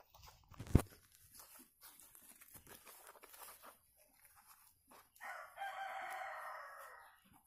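A rooster crows once, a single call of about two seconds beginning past the middle. Before it come a sharp knock about a second in and soft rustling of soil being handled around a seedling.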